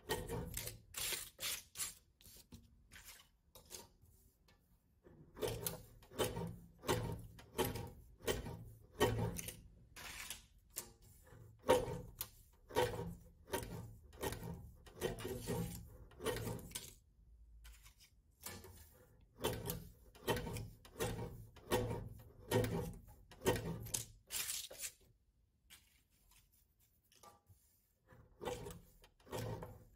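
Hand work at a table: repeated short scraping or rubbing strokes, about one or two a second, in runs broken by a few brief pauses.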